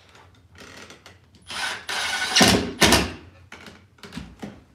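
Cordless drill/driver running in a few short bursts, the loudest in the middle, driving a screw up through a plywood chair seat under thick fabric. The 1¼-inch screw is barely long enough to get through the fabric layer.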